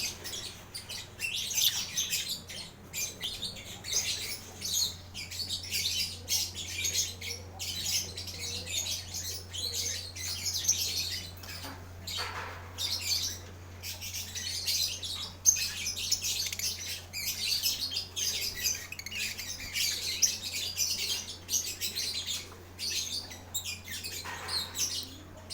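Several lovebirds calling over one another in a dense, continuous run of rapid, high chirps. A steady low hum lies under the calls.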